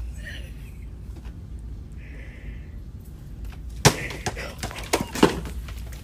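A boxed ball dropped onto a hard shop floor: a sharp thud about four seconds in, followed by a few lighter knocks as it settles.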